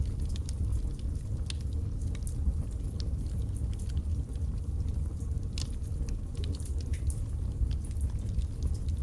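Logs burning in a fireplace: a steady low rumble of flames with scattered sharp crackles and pops, a few a second.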